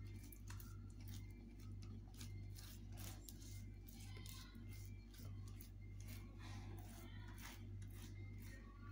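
Fingers spreading besan paste over a taro leaf: faint, irregular soft ticks and wet rubbing, over a steady low hum.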